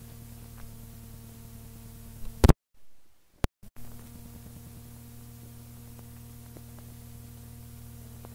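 Tape hiss and a steady electrical hum from a home cassette recording, with no music playing. About two and a half seconds in come two loud clicks and about a second of dead silence broken by another click, then the hiss and hum return.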